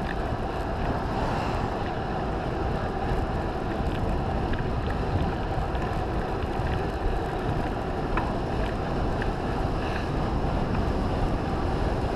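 Wind noise buffeting a GoPro's microphone as a bicycle rolls downhill on asphalt: a steady, heavy rush with a few faint ticks.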